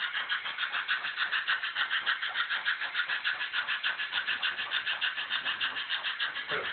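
Model train rolling along the layout's track: a steady, rapid clicking rattle of about nine clicks a second.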